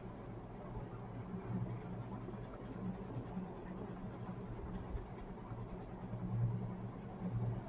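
Colouring pencil scratching back and forth on paper in short shading strokes, over a low steady hum.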